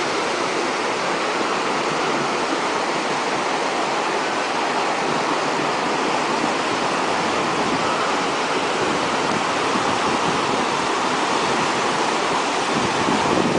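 Fast-flowing floodwater rushing steadily, a continuous loud roar of moving water.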